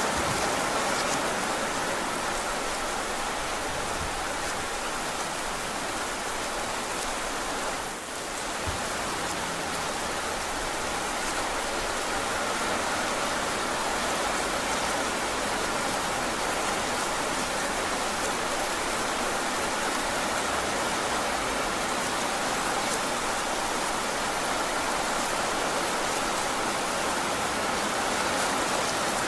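Heavy rain falling steadily, an even hiss that dips briefly about eight seconds in.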